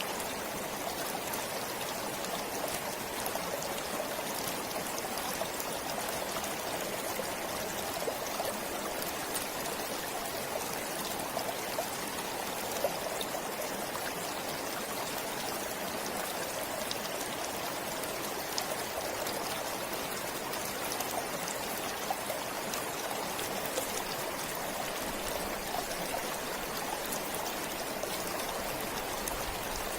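A forest stream flowing steadily, a constant rush of running water with small splashes and trickles scattered through it.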